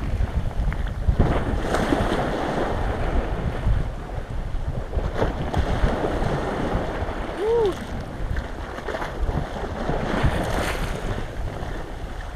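Wind buffeting the microphone over small waves washing against an icy shore, with water sloshing as a person wades out of the freezing sea. A brief high cry about seven and a half seconds in.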